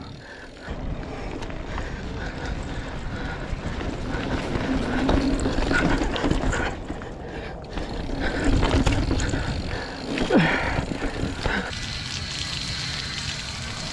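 Bicycle riding along a dirt trail: a steady rough rolling noise with scattered small rattles and ticks, and faint voices in the background.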